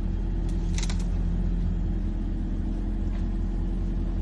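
Safari jeep's engine idling with a steady low rumble, heard from inside the vehicle. A short high-pitched sound cuts in just under a second in.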